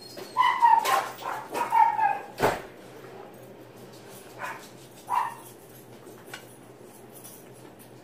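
A dog whining and yipping in a quick run of short, high cries over the first couple of seconds, with a sharp knock among them, then two more short cries a few seconds later.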